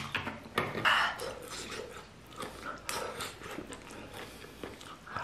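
Vinegar poured from a plastic jug onto a bowl of noodles, then chopsticks tossing and mixing the noodles in a ceramic bowl, with irregular soft stirring noises and light clicks against the bowl.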